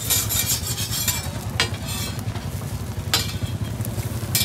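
Food sizzling in a hot pan at a hawker stall, with a few sharp metal knocks of a utensil against the pan.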